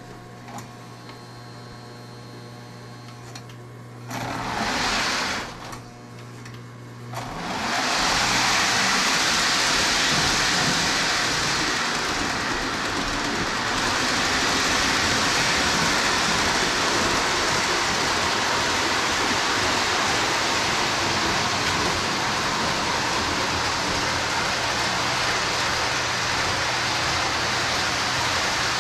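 Lionel O-gauge Chicago & North Western FM diesel locomotive running on three-rail track pulling a string of boxcars: a steady whirring rumble of motor and rolling wheels. It comes in with a brief rush about four seconds in and runs steadily from about seven seconds on.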